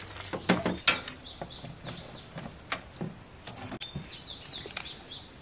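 A few sharp knocks and clicks of plastic parts and tools being handled, the loudest about half a second and a second in, with birds giving short, falling chirps.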